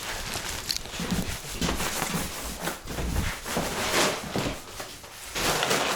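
Footsteps with irregular rustling and scuffing.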